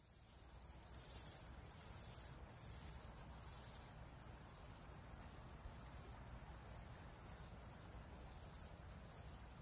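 Crickets chirping faintly: a steady high trill with regular short chirps about two to three times a second.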